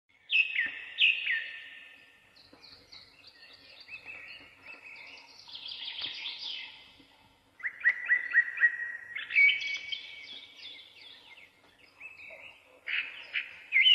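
Birds chirping: bursts of quick, repeated chirps that fall in pitch, with quieter gaps between.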